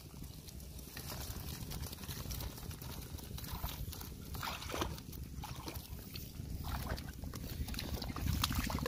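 Wet rustling and quick pattering of small fish and shrimp being shaken and picked out of a fine-mesh net into a wicker basket, with many short, sharp clicks over a steady low rumble.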